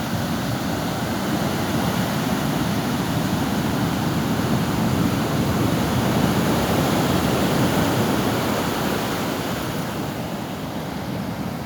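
Surf breaking and washing onto a beach: a steady rushing noise that swells to its loudest about halfway through and eases near the end.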